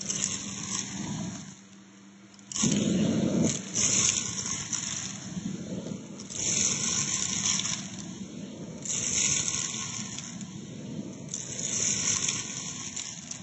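Vacuum hose crevice nozzle sucking uncooked rice and bath salt crystals out of carpet, the grains crackling and rattling as they are drawn up, in uneven swells. It drops briefly quieter about two seconds in.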